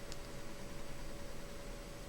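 Steady hiss of a recording with its volume turned up, under a faint steady hum, with one soft click just after the start. No snore is heard.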